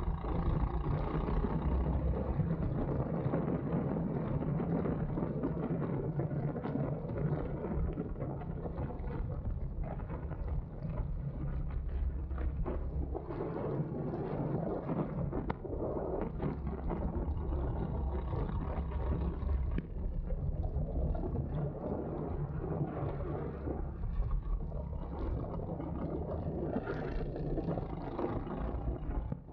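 Go-kart engine running on the track, with wind noise on the microphone.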